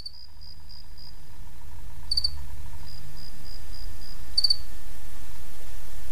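Crickets chirping as a night ambience fades in: a loud double chirp about every two seconds, with fainter runs of chirps in between, over a low rumble.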